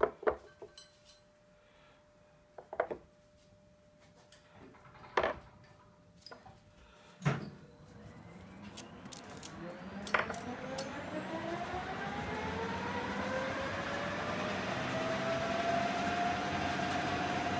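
Steel micrometer standards set into a wooden case, giving sharp clicks and knocks a couple of seconds apart. From about seven seconds in a lathe motor winds up, its whine rising steadily in pitch and loudness and levelling off near the end.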